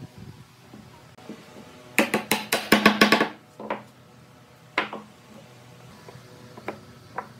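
Wooden chair parts knocked together as mortise-and-tenon joints are seated: a quick run of about eight sharp, ringing wooden knocks about two seconds in, then a few single knocks, the last ones faint.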